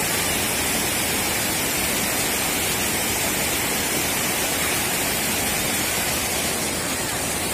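River floodwater pouring over a low stone weir and churning into white water below, a steady unbroken rush.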